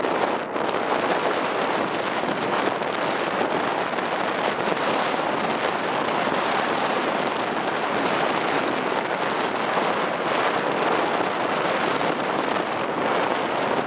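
Strong wind rushing steadily over the microphone on the deck of a moving ferry, over the ship's running noise and the wash of the sea.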